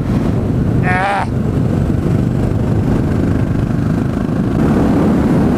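Honda FMX 650 supermoto's single-cylinder engine running at road speed, heard from the rider's seat with air rushing past, growing a little louder about three-quarters of the way through.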